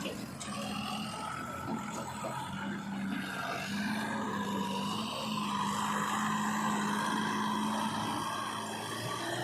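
Diesel engines of heavy farm and earthmoving machinery running steadily, with a constant low hum and a higher whine that swells a little around the middle.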